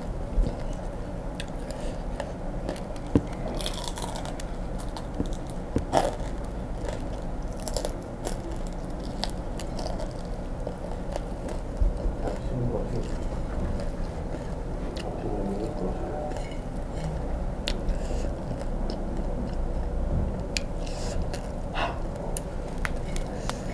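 Close-miked chewing of crunchy fried grasshoppers: scattered crisp crunches and mouth clicks over a low steady hum.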